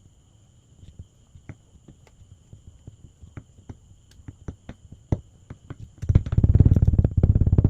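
Kinetic sand being worked close to the microphone: soft scattered crackles, then about six seconds in a loud, rapid run of low crunching.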